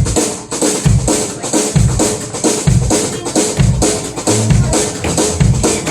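Live band starting a country song's instrumental intro: the full band comes in abruptly, led by a drum kit with a bass-drum beat a little under once a second under steady cymbal strokes, with pitched instruments playing along.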